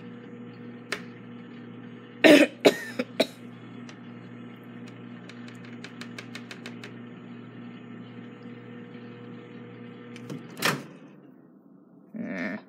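Microwave oven running with a steady hum, which stops about eleven seconds in. A few short, loud noises break in about two to three seconds in, with another just before the hum stops.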